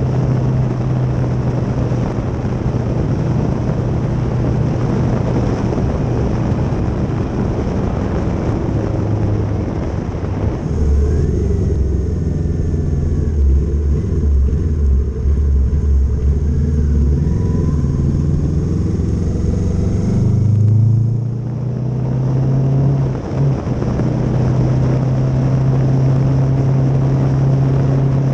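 Kawasaki Z650 motorcycle engine running at road speed with wind and road noise. About eleven seconds in, the wind noise falls away and the engine drops to a deep, low rumble as the bike slows for a junction. Near twenty seconds the engine note rises again, with a brief dip in level a few seconds later before it settles back to steady cruising.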